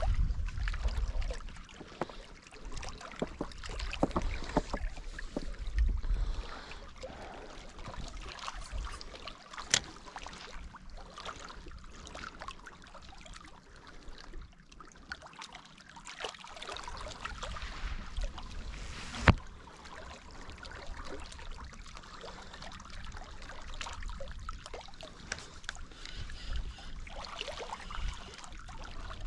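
Small waves lapping and trickling among shoreline rocks, with scattered light clicks and a sharp click about two-thirds through.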